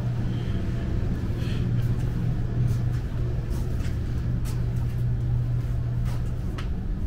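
Steady low hum with a few faint clicks and taps over it.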